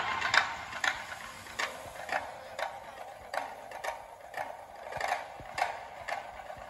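Sharp clock-like ticking, about two ticks a second and slightly uneven, a ticking passage in the fire show's music track.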